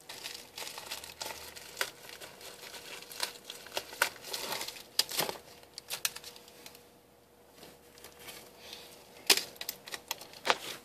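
Clear plastic packaging being handled and opened, crinkling and crackling with irregular sharp clicks, quieter for a couple of seconds past the middle and picking up again near the end.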